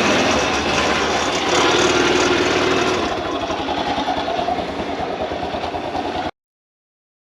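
Honda Cub's small single-cylinder four-stroke engine running, recorded while hunting an abnormal noise from underneath the bike. The sound eases down a little about three seconds in, then cuts off abruptly to silence.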